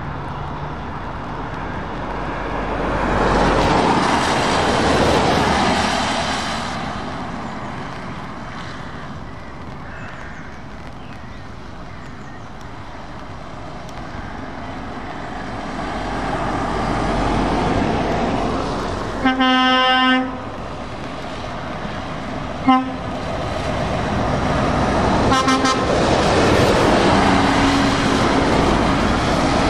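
Heavy trucks driving past one after another on a wet road, tyre hiss and engine noise swelling as each one goes by. A vehicle horn sounds a long blast about two-thirds of the way through, followed by a short toot and another brief blast a few seconds later.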